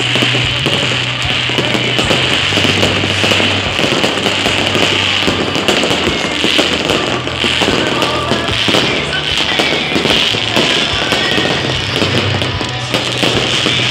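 Fireworks going off in a dense, continuous barrage of bangs and crackling, with music playing underneath.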